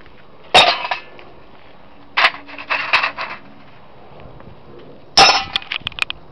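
Lumps of scrap aluminium clanking as they are dropped into a steel saucepan: four sharp metallic clanks spread over a few seconds, the last followed by a quick run of small clinks and rattles.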